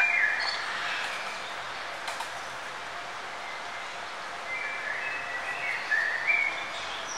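Birds chirping and singing in short whistled phrases, near the start and again past the middle, over a steady background of noise.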